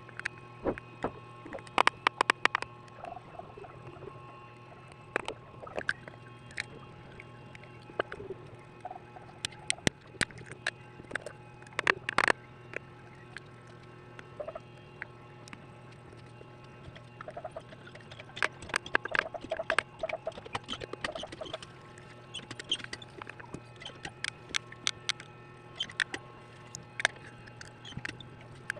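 Irregular clicks and taps of small tools and plastic parts handled while a smartphone's screen is repaired, over a steady low hum.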